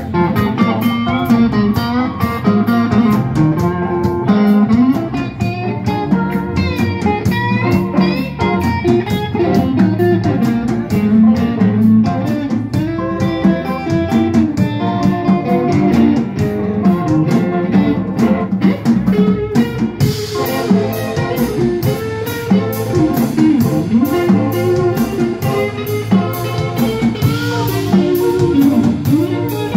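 Live electric blues band playing an instrumental stretch with no singing: electric guitar over bass and drums. About two-thirds of the way through, a steady cymbal beat becomes more prominent.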